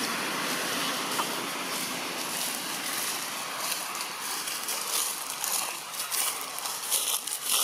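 Steady rushing outdoor background noise, with short crackles in the second half.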